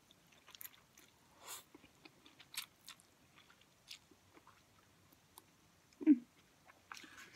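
Instant ramen noodles being slurped and chewed close to the microphone: short, wet, scattered slurps and mouth sounds. About six seconds in there is a brief low voiced sound, the loudest moment.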